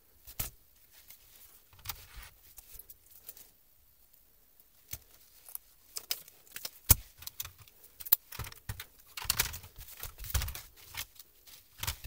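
Hands handling a laptop chiclet keyboard and its thin metal backing plate on a tabletop: scattered clicks, light knocks and short scrapes, with a quiet pause about three seconds in and busier handling near the end.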